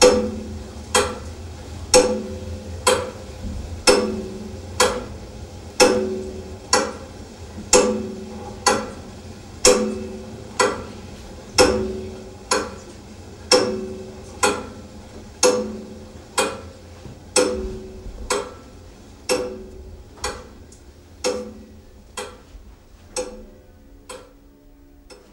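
Clock ticking steadily about once a second, each tick followed by a short ringing tone. The ticks grow fainter over the last few seconds.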